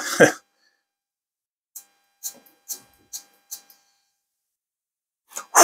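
A person sniffing perfume on the wrist: a string of about six short, quiet sniffs between two and four seconds in, then a louder rush of air just before the end.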